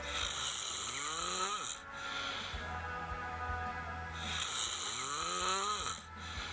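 A person snoring: two long snores about four seconds apart, each a hissing breath with a pitch that rises and falls.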